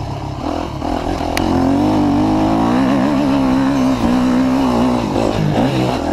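Dirt bike engine running hard under throttle, its pitch wavering up and down as the rider accelerates and backs off.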